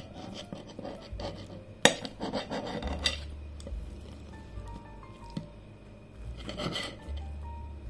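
Knife and fork cutting into a toasted tortilla sandwich on a plate: a sharp clink of metal on the plate about two seconds in, then about a second of rasping scrapes as the knife saws through, and another short spell of cutting near the end.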